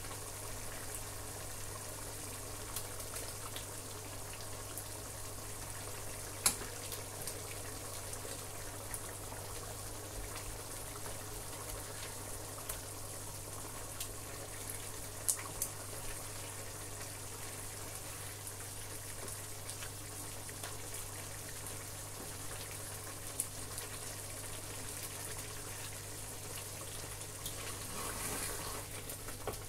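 Pot of egusi soup cooking on a gas hob: a steady low hiss with a hum under it, a few light clicks as a wooden spoon works in the pot, and louder stirring near the end.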